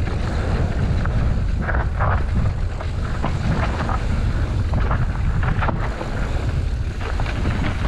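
Wind buffeting the microphone of a camera on an electric mountain bike riding fast down a rough trail, with brief rattles and knocks from the bike over the rocky ground, a few of them about two, three and six seconds in.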